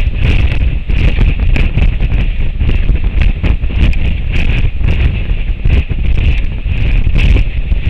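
Strong wind buffeting an outdoor webcam's microphone: a heavy, gusting rumble that surges and drops every fraction of a second, with a steady hiss above it.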